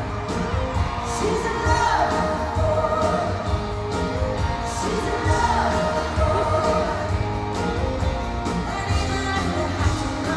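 Live country band playing a song with singing over it, a steady drum beat underneath, heard in a large reverberant arena.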